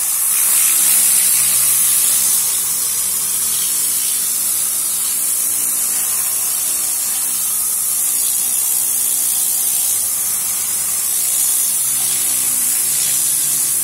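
Tornador air-powered cleaning gun spraying cleaning solution with compressed air onto a car's fabric headliner: a steady, high-pitched hiss of air.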